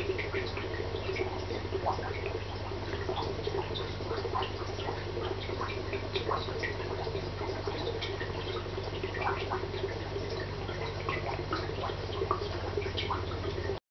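Aquarium water circulation: a steady low electrical hum with continuous bubbling and many small dripping plinks. It cuts off abruptly near the end.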